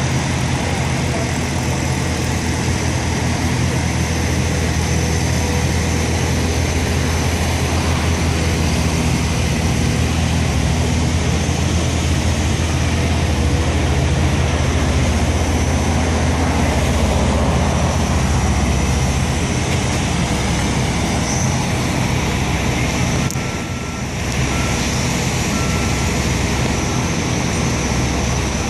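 Diesel power units of self-propelled modular transporters carrying a steel truss railroad bridge span, running with a steady low drone. Near the end, a short run of high beeps from a warning alarm sounds over it.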